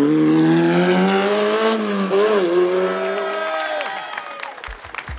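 Historic single-seater racing car's engine pulling hard uphill, revs climbing steadily with a brief dip about two seconds in, fading away just before four seconds. Near the end, applause and a steady music beat come in.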